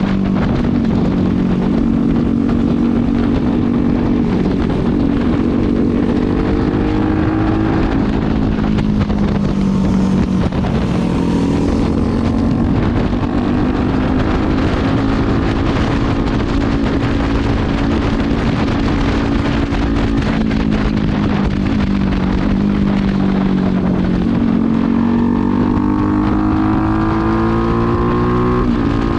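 Modified 275cc motorcycle engine running on a test ride through its handmade exhaust fitted with a dB killer. Its pitch falls and climbs with the throttle, dropping about ten seconds in and again near the end before rising once more.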